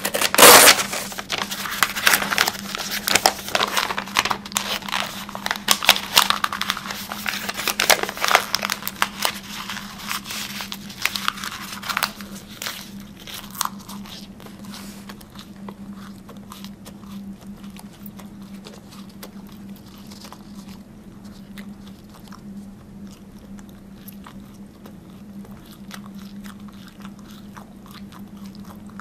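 Close-up crunching and chewing by a human mouth: dense crisp crunches for roughly the first twelve seconds, then thinning out to softer, sparser chewing clicks. A steady low hum runs underneath.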